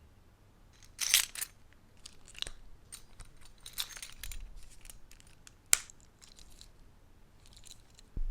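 Handling noise from unpacking a small device: short rustles and light clicks of packaging and hard plastic, with a louder rustle about a second in and one sharp click a little before the sixth second.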